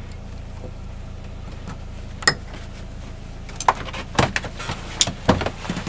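Sharp click about two seconds in, then a run of small clicks and knocks as curtain hooks on a narrowboat's cabin doors are handled and adjusted, over a steady low hum.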